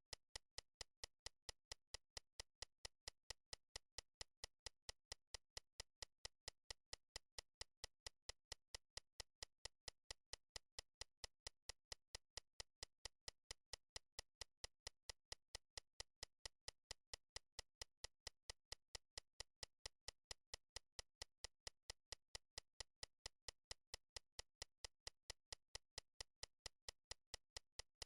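Faint, evenly spaced ticking: short sharp clicks at a steady rate of about two and a half per second, with nothing else behind them.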